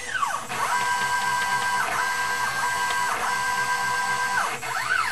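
Stepper motors of a homemade hobby CNC machine whining as they drive the pen carriage while it plots text. Steady tones hold for about a second at a time, with short breaks where the pitch drops and climbs again as the head slows and speeds up.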